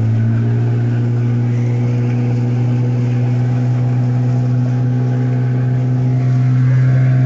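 Outboard motor of an inflatable rescue boat running steadily under way, a loud, even drone that climbs a little in pitch near the end as it speeds up slightly.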